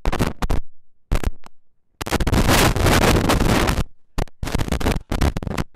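Microphone handling noise: a run of sharp thumps and bumps on a live mic, with a loud rubbing rush lasting nearly two seconds in the middle.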